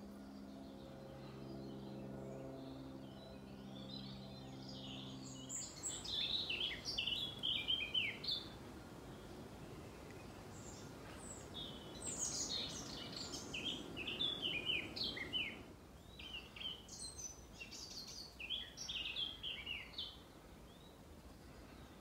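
A plane's engine drones steadily overhead and cuts off about five seconds in. Then a songbird sings three phrases of quick, high, tumbling notes, each lasting a few seconds.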